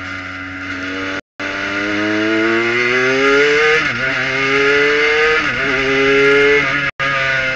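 Kohler-powered Prototype 1 race car's engine heard from inside the cockpit, accelerating hard out of a slow first-gear corner. Its pitch climbs, drops sharply with quick upshifts about four and five and a half seconds in, and climbs again each time. The audio cuts out briefly about a second in and again near the end.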